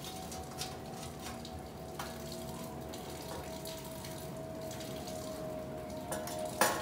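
Light metal clicks and knocks as a steel bar and a locking C-clamp are set against a steel sheet, with a sharper knock near the end, over a steady hiss.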